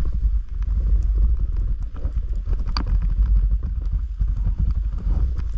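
Snowboard sliding and scraping over firm groomed snow: a steady rough rumble with clattering chatter from the board, and one sharper scrape a little under three seconds in.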